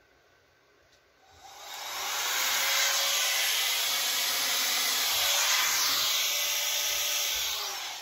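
Handheld blow dryer switched on about a second in, rising to a steady rush of air that holds for several seconds, then fading out near the end.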